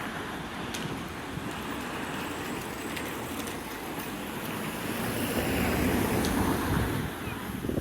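Strong wind rumbling and buffeting on the microphone, with a vehicle passing close by that swells the noise to its loudest about five seconds in.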